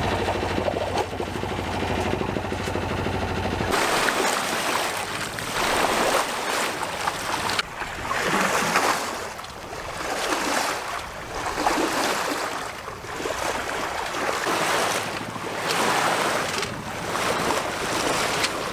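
A sailboat's engine running steadily under the rush of water for the first few seconds. Then the hum drops away and water and wind rushing past the hull fill the rest, swelling and fading every second or two.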